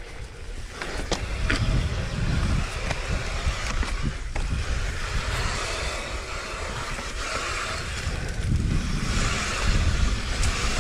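Wind buffeting the microphone over the hiss and rumble of a mountain bike rolling along a dirt trail, with scattered clicks and rattles. The hiss grows louder near the end.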